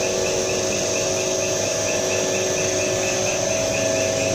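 Common-rail diesel test bench running, its drive turning a Rubicon diesel's supply pump under test: a steady machine hum with a faint, regular tick about four times a second.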